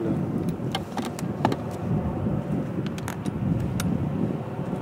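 Twin-engine jet airliner on final approach for landing, its engines giving an uneven low rumble, with scattered sharp clicks over it.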